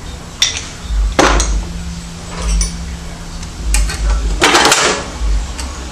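Metal hand tools clinking and scraping against each other: several separate clanks and a longer rattle about four and a half seconds in, as wrenches and sockets are handled during a valve adjustment.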